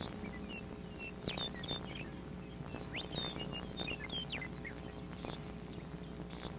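Small birds chirping: short, scattered high chirps and quick falling notes, over a steady low hum.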